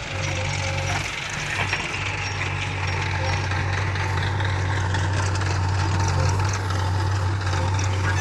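Heavy diesel engine running steadily, with a few short knocks about a second in.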